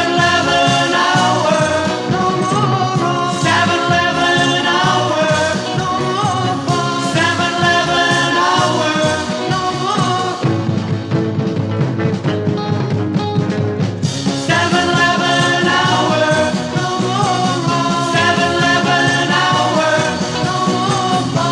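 Instrumental break of a 1960s rock band recording: a lead instrument plays a melody over bass and drums, with a brief change around the middle where the bright top of the sound drops away for a few seconds before the band comes back in full.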